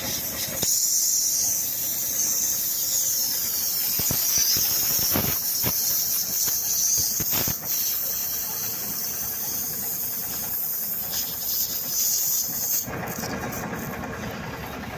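Steady high-pitched hiss of air escaping from a punctured truck tyre while a string plug is forced into the hole, with a few sharp knocks of the plug tool about four to seven seconds in.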